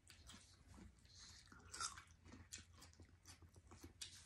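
Faint biting and chewing of firm, under-ripe persimmon: small crisp crunches, with one louder moment a little under two seconds in.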